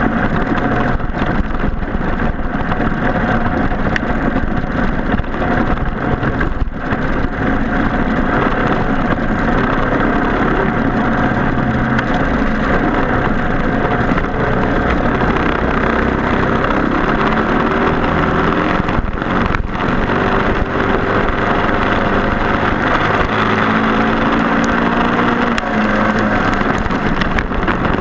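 Racing kart engines, Briggs & Stratton Animal four-strokes, running hard at race speed. The engine pitch keeps rising and falling as the karts accelerate and lift, with a brief dip a little past two-thirds of the way through.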